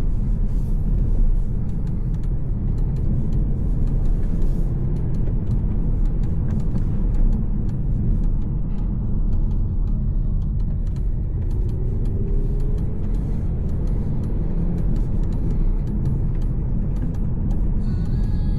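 VW T-Roc driving, with a steady low engine and road rumble. A faint engine tone rises slowly about two-thirds of the way through.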